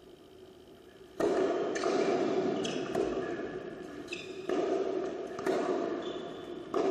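Tennis balls bounced and struck with rackets on an indoor hard court, a series of sharp pops about a second apart starting about a second in, each trailing off in the echo of a large hall.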